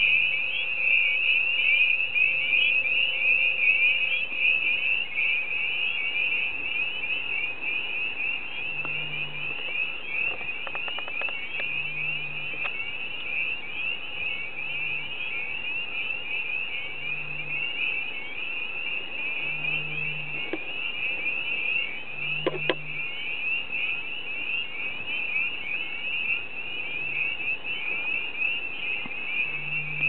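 Dense chorus of spring peepers calling from a pond: countless short, high, rising peeps overlapping into one shrill, unbroken sound.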